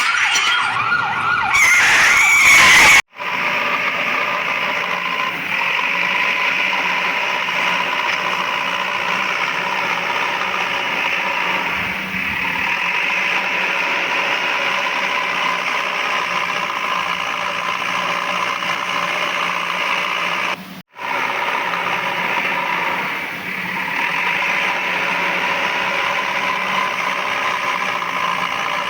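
A steady engine drone from a toy vehicle, holding one pitch. The sound cuts off abruptly and resumes about three seconds in and again about twenty-one seconds in. The first seconds are louder, with shifting pitches.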